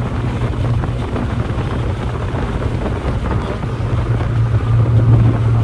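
1990 Mazda Miata's four-cylinder engine droning steadily under way, heard from inside the cabin with road and wind noise. It gets a little louder near the end.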